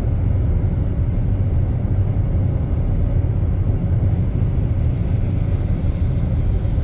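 Hailstorm: dense hail pelting down in a loud, steady, low rumble.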